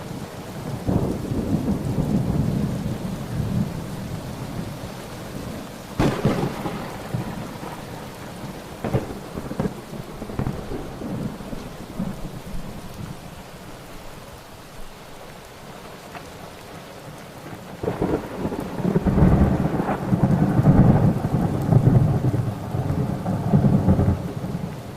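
Thunderstorm: steady rain with rolling thunder. There is a sharp thunderclap about six seconds in, a few smaller cracks after it, and a long, loud rumble of thunder in the last third.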